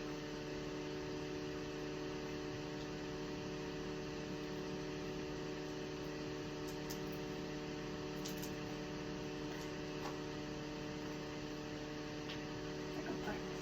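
A steady electrical hum made of several fixed low tones, over a faint even hiss.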